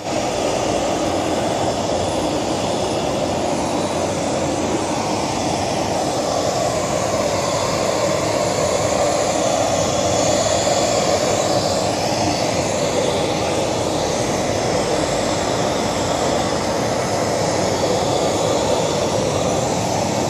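Jet airliner engines running on the apron: a loud, steady, even rush that holds throughout.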